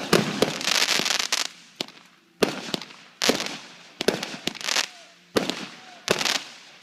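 Fireworks going off: a string of sharp bangs about once a second, each followed by a fading crackle, with a dense stretch of crackling through the first second and a half.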